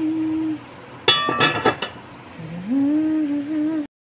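A person humming a few held notes, with sharp clinks of an enamelled cast-iron pot lid being set on the pot about a second in; the sound cuts off suddenly near the end.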